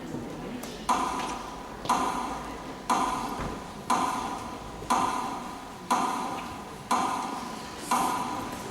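Metronome beating slowly, about once a second, eight beats in all; each beat is a sharp tick with a short ringing tone that fades before the next. It marks a minute of silence.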